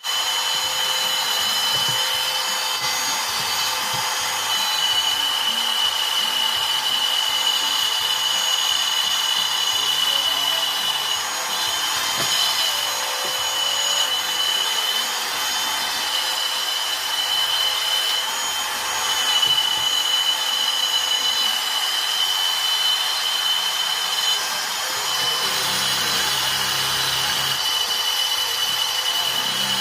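Electric power tool running continuously on wood, a steady high whine over rushing noise, with slight dips in load now and then.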